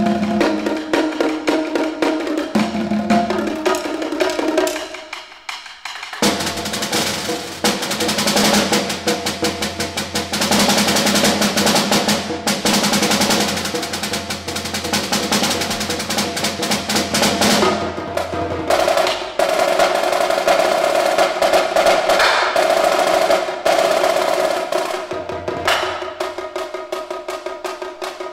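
Percussion ensemble playing drums, concert bass drum and a mallet keyboard instrument. Pitched notes open it, the sound drops briefly about five seconds in, and a long stretch of fast, dense drumming follows. In the last third a sustained pitched roll rings under the strokes.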